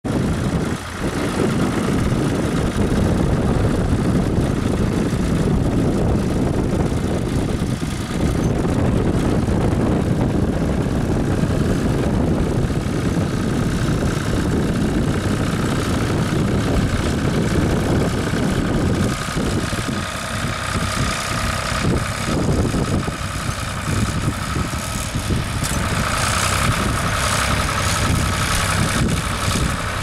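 Ford tractor's engine running steadily under load as it pulls a two-furrow mouldboard plough through the soil; the low engine sound thins a little about two-thirds of the way through.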